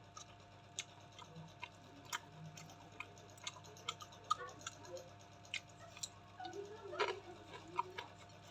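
Close-miked eating sounds: irregular wet mouth clicks and lip smacks of chewing, roughly two or three a second. About seven seconds in there is a brief voiced murmur.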